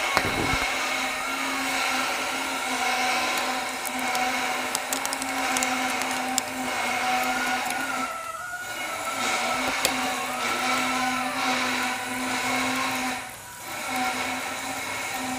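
A small electric motor running with a steady whine, dropping away briefly twice, about eight and a half and thirteen and a half seconds in.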